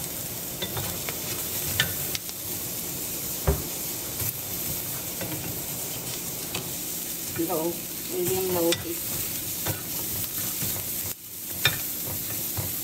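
Wooden spatula stirring and scraping sliced shallots and garlic cloves in a nonstick wok over a gas flame, with a steady sizzle as they roast and occasional clacks of the spatula against the pan.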